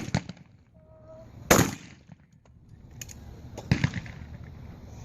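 Shotgun shots on a trap range: a loud report about a second and a half in and another just before four seconds, each trailing off in echo, with fainter shots around them.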